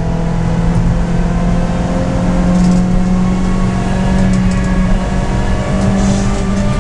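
Suzuki Swift Stage 2's engine heard from inside the cabin, pulling hard at high revs with its note climbing slowly, over tyre and road noise.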